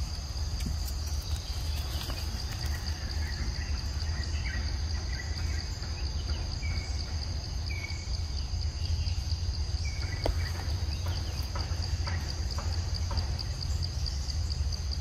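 Steady high-pitched chorus of forest insects over a constant low rumble, with a few short bird chirps near the middle.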